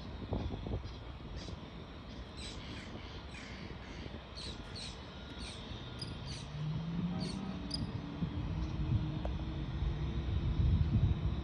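A bird calling in a quick run of short, harsh calls, two or three a second, for several seconds over a steady low rumble. A low motor hum comes in about six seconds in and grows louder near the end.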